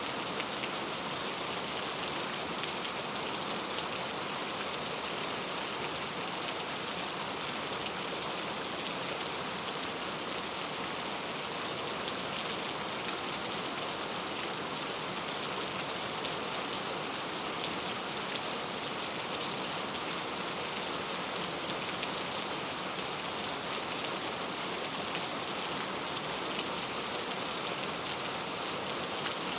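Rain falling steadily on a road: a dense, even hiss with scattered sharper drop ticks.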